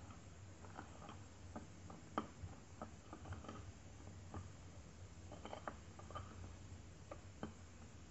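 Metal spoon stirring dry sugar and cornstarch in a small ceramic bowl: faint, irregular clicks and scrapes of the spoon against the bowl.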